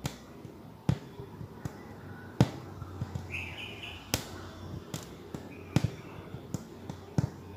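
Aari hook needle punching through fabric stretched taut on an embroidery frame while chain-stitching, giving irregular sharp taps about one every half second to second.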